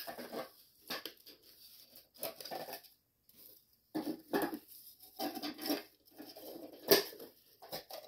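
Plastic grounds cup and lid of a Sboly conical burr coffee grinder being handled and refitted as the grinder is set up again, with no grinding: scattered plastic clicks, knocks and short scrapes, the sharpest knock near the end.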